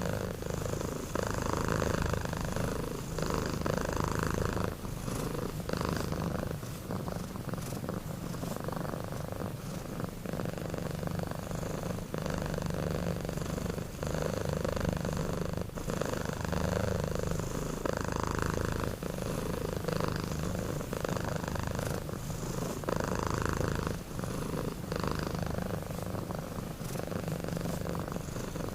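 Two sleeping kittens snoring: a steady low buzzing rumble that swells and fades in a slow breathing rhythm, without a break.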